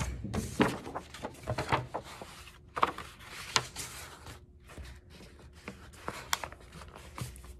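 A large sheet of paper rustling and crackling as it is folded in half and pressed flat on a tabletop, with many short sharp creasing sounds.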